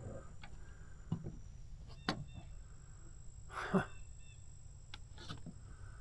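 Slow footsteps on a wooden boardwalk: a dull knock of shoe on planks about once a second, one heavier step a little past the middle.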